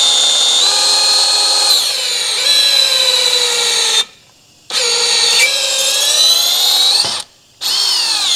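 Cordless DeWalt drill running a boring cutter through a valve guide in a BMW S50 aluminium cylinder head, boring it out for a new guide liner. The motor whines, rising and falling in pitch with the trigger. It stops twice for a moment, once about four seconds in and again about seven seconds in, then starts again.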